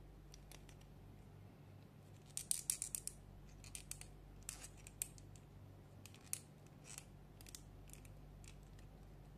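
Plastic joints and parts of an S.H.Figuarts Kamen Rider Kuuga Ultimate action figure clicking as its arm and shoulder are moved by hand: a quick run of clicks about two and a half seconds in, then scattered single clicks.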